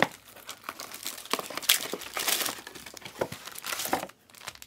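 Crinkling and rustling of plastic and foil trading-card pack wrappers being handled and torn, in irregular bursts that stop shortly before the end.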